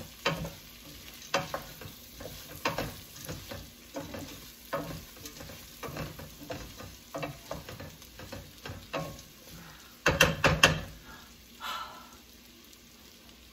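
Wooden spoon stirring diced sweet potatoes and lentils in a stainless steel stockpot, scraping and knocking about once a second, with the vegetables sizzling in the hot oil. A few louder knocks come about ten seconds in.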